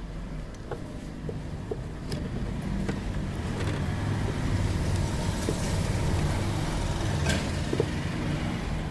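A motor vehicle's engine rumbling, growing louder over the middle seconds and easing off near the end, with a few small clicks.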